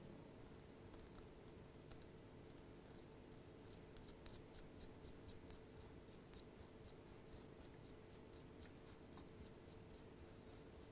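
Faint, scratchy ticking of a knurled metal ring being turned by hand onto the threads of a rebuildable e-cigarette atomiser, at about three or four ticks a second and growing stronger about four seconds in.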